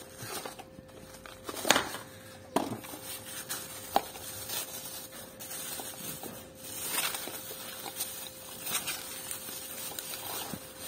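Rustling and crinkling of a plastic bag and cardboard boxes as a wire cup brush is handled and pulled from its packaging, with a few sharp clicks and taps.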